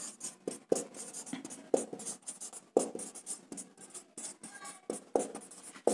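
Handwriting during a maths solution: a run of short, irregular scratchy strokes and light taps of a writing tool on the writing surface as figures are written out.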